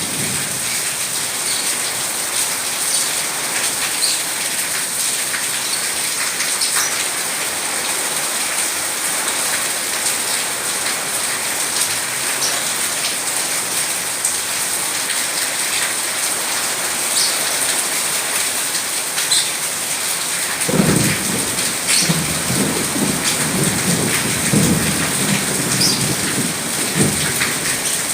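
Steady rain falling, with a low rumble of thunder rolling in about three-quarters of the way through.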